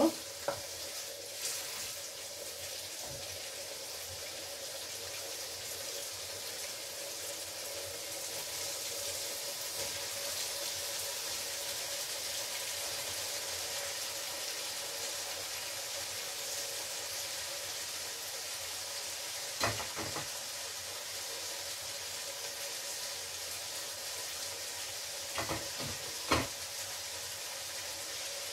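Food sizzling in a frying pan on the hob, a steady hiss, with a couple of short utensil knocks against the pan about two-thirds of the way through and again near the end.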